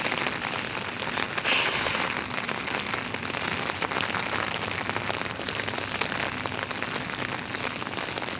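Heavy rain falling and pattering on the ground and nearby surfaces, a steady hiss dotted with individual drop ticks. A brief louder rush comes about a second and a half in.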